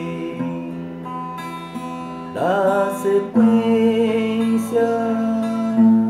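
Slow chanting over acoustic guitar: a voice draws out single words ('ordem', 'da', 'sequência') as long held notes, a new note sliding in about two and a half seconds in.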